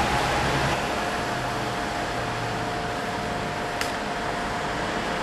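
Steady rushing noise with a thin steady tone held underneath and a faint click near the end.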